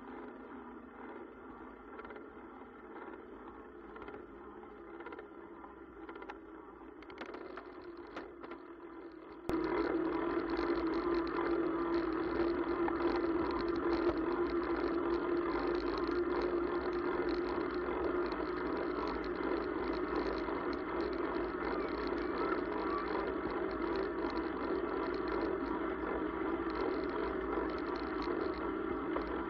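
Cybertrack 100 electric bike ridden on a gravel dirt road: a steady motor whine over tyre noise on the gravel. It jumps suddenly louder about nine and a half seconds in, then holds steady.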